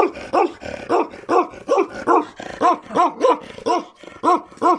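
Bakerwal dog barking over and over in a steady run, about two to three barks a second.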